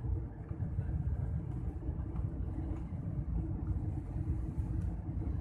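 Steady low rumble of a jet airliner in flight, heard from inside the passenger cabin: engine and airflow noise during the descent on approach to landing.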